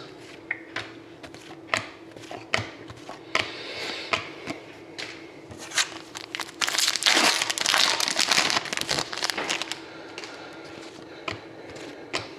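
Trading cards clicking against each other as they are handled. About halfway through, the foil wrapper of an Upper Deck hockey card pack crinkles and tears open for about three seconds. A steady low hum runs underneath.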